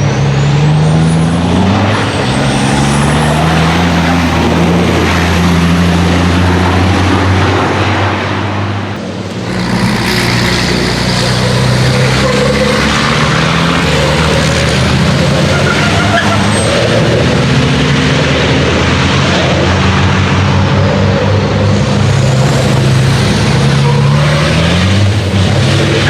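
Race trucks' big diesel engines running hard on the circuit, their pitch stepping up and down through gear changes, with a high turbo whistle rising over them near the start and again later. A short lull about nine seconds in, then the next truck comes through.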